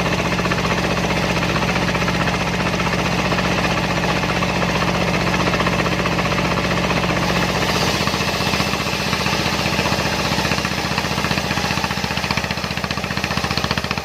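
Single-cylinder Dongfeng diesel engine running steadily, driving a homemade circular-saw sawmill. About halfway through, the sound changes: less low rumble and more high hiss.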